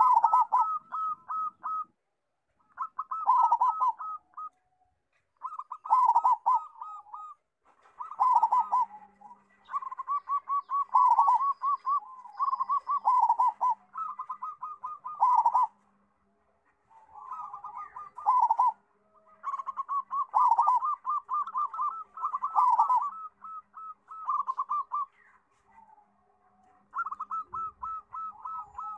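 Zebra dove (perkutut) cooing: about a dozen phrases, each a quick run of repeated notes a second or two long, with short gaps between them.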